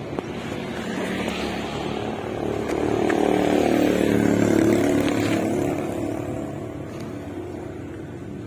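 A motor vehicle drives past on the road, its engine growing louder to a peak about four seconds in and then fading away.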